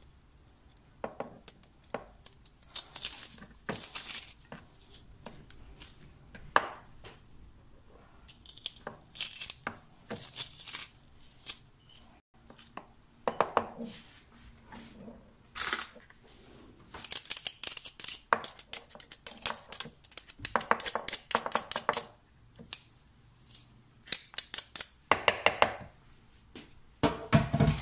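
Garlic cloves being crushed in a hand garlic press: repeated bursts of rapid crackling clicks as the press is squeezed again and again, with short pauses between squeezes.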